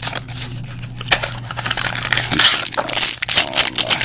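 Small cardboard blind box being opened by hand and the foil bag inside crinkled as it is pulled open: a run of quick crackles, busiest in the second half.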